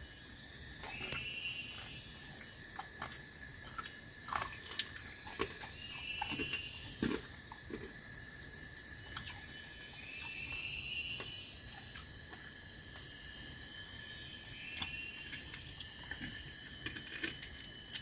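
Forest insects droning steadily at a high pitch, with a short call repeating about every four seconds and a few light clicks and taps.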